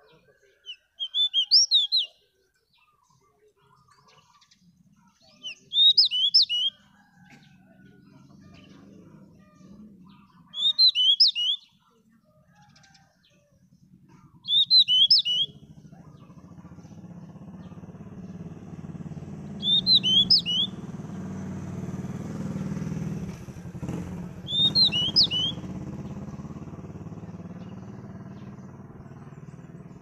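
Caged male pied bush chat singing a short, quick, high whistled phrase about once every five seconds, six times over. A low engine rumble builds up in the background from about halfway through and stays.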